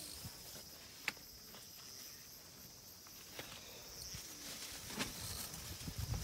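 Insects chirring steadily in summer, with a sharp click about a second in, a few fainter clicks, and low shuffling that grows near the end.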